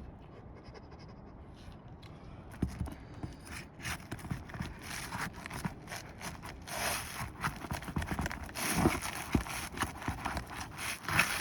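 Roof shingles being lifted and worked loose by hand: a run of scrapes, crackles and short clicks that starts about two and a half seconds in and gets busier toward the end.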